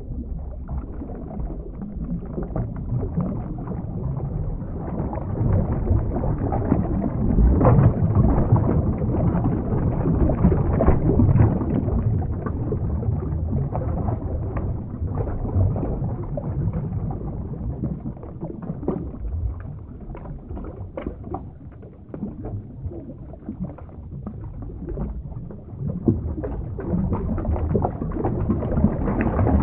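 Underwater ambience: muffled rushing and sloshing water with a deep rumble, swelling and fading unevenly without any steady tone.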